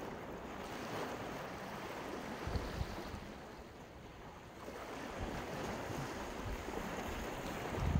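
Sea waves breaking and washing up on a beach, the surf swelling, ebbing around the middle and building again. Wind buffets the microphone in low rumbling gusts, about two and a half seconds in and again near the end.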